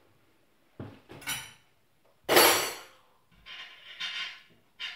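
Crockery, glass and cutlery clinking and clattering on a kitchen worktop as they are handled and put down: a couple of knocks about a second in, a loud ringing clink just after two seconds, then a brief rattle and one more knock near the end.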